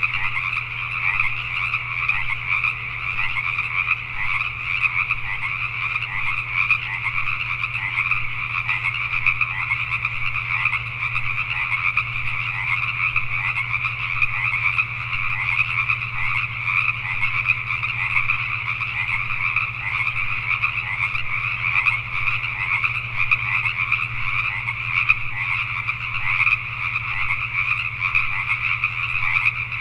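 A dense night chorus of Pacific tree frogs (Pacific chorus frogs), many males calling at once so that their short, rapid calls overlap into a continuous, pulsing din. A steady low hum runs underneath.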